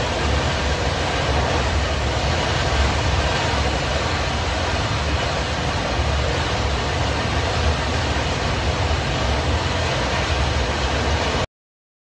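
Natural gas jetting under pressure from a ruptured pipeline: a loud, steady rushing noise that cuts off suddenly near the end.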